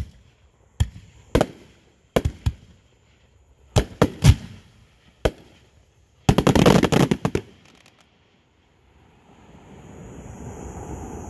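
A series of sharp bangs at uneven intervals, then a rapid crackling burst lasting about a second a little past halfway. A faint steady rumble comes in near the end.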